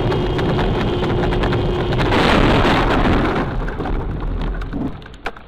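Car road and engine noise as picked up by a dashcam, rising to a louder rush of noise about two seconds in and then fading away, with a few sharp clicks near the end.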